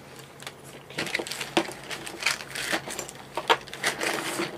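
Thin clear plastic bag crinkling and crackling as it is opened and handled and plastic model-kit parts are pulled out of it, with a few sharp clicks among the rustle. It starts about a second in and goes on in irregular bursts.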